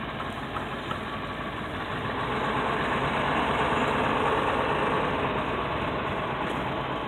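Engine of a converted short school bus running as the bus pulls away slowly over dirt and gravel, growing louder for a few seconds and then easing off.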